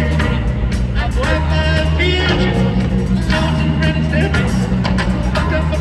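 Live rock band playing loudly, with a heavy, sustained bass line underneath and notes bending up and down higher over it.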